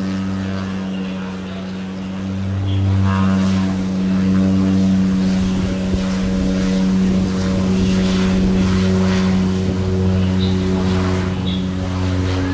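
Aircraft engines running steadily: a loud low drone at a held pitch that grows louder about two seconds in.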